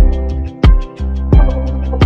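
Background music with a steady beat, a strong hit about every two-thirds of a second over sustained low notes.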